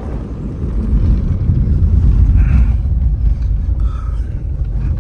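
Car driving over a rough dirt track: a low rumble of engine and tyres, heard from inside the cabin, that swells in the first second.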